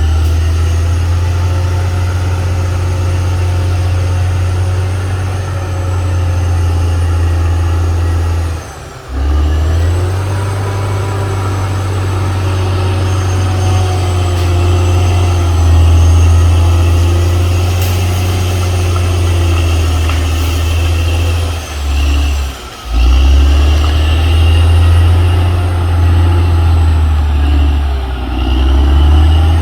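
CAT D6R XL bulldozer's diesel engine running steadily with a deep, loud hum. It dips briefly twice, about 9 and 22 seconds in.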